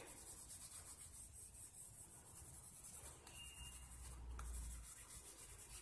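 Pencil scratching on drawing paper in quick, faint back-and-forth shading strokes, darkening the tone.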